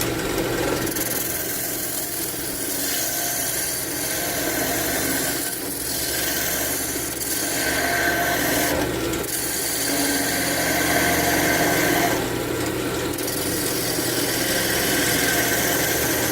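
A sharp turning tool cutting a cherry chair leg spinning on a wood lathe: a continuous scraping hiss of shavings peeling off over the lathe's steady motor hum. The cut eases off briefly a few times as the tool is repositioned.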